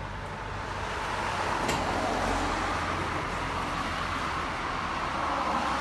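Hot water gushing from the nozzle into a noodle bowl inside a Fuji Electric retro noodle vending machine: a steady rushing that swells about a second in, over a low machine hum, with a single click partway through.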